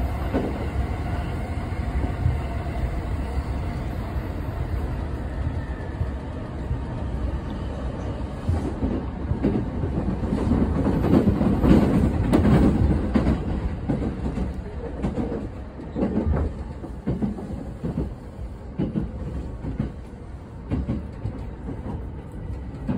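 Commuter electric train heard from inside the carriage: a steady rumble of wheels on the rails with clickety-clack knocks, loudest about halfway through, then quieter as the train slows into the station.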